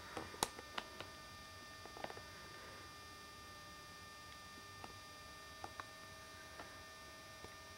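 Faint room tone: a steady electrical hum of several thin tones, broken by a few faint ticks.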